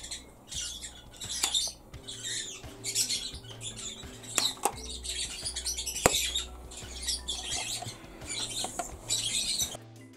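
Small plastic Polly Pocket toy pieces being handled: repeated rustling and scraping with several sharp plastic clicks, the loudest about six seconds in.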